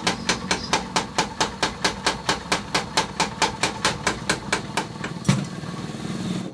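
Motor-driven power hammer pounding iron in fast, even blows, about six a second, over the steady hum of its motor. The blows stop about five seconds in with a last heavier thud, and the hum runs on.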